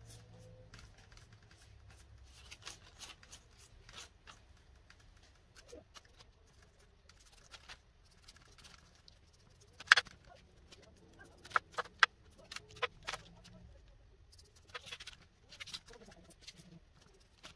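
A pastry brush dabbing egg wash onto raw puff-pastry turnovers on a baking tray: soft brushing strokes with scattered light clicks, the sharpest about ten seconds in and a small cluster a couple of seconds later.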